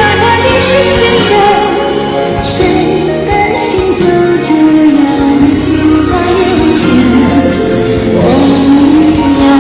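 Chinese pop ballad music: a held, stepping melody line over steady accompaniment with light cymbal strokes, no lyrics sung.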